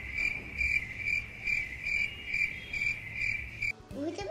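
Cricket chirping: a steady high trill pulsing about twice a second, which cuts off suddenly near the end.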